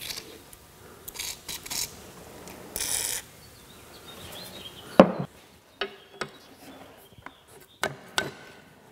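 Penetrating oil sprayed from an aerosol can in two short hisses onto a seized part of a cast-iron arbor press, to free it. About five seconds in comes one loud metallic knock, then a few lighter metal clinks as the parts are handled.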